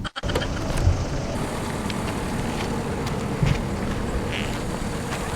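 Steady outdoor background noise with a faint, even hum underneath and a few small ticks; no single clear event stands out.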